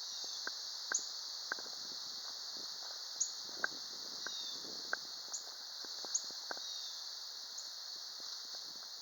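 A steady, high-pitched insect chorus, with a dozen or so faint, irregular clicks scattered through it.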